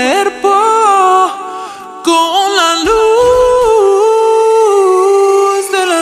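Music: a song carried by a single voice singing a melody in long, wavering held notes, with almost no bass beneath it.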